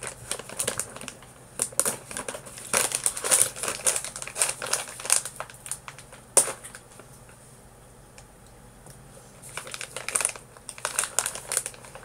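Plastic snack bag crinkling and crackling in bursts as it is pulled, twisted and bitten at by someone struggling to tear it open, with one sharp crack a little past halfway and a quieter lull before more crinkling.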